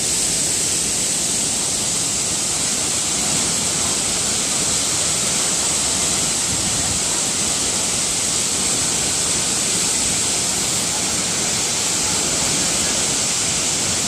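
Steady rush of a tall waterfall, about 300 feet high, plunging into its pool; an even, unbroken noise of falling water with a bright hiss on top.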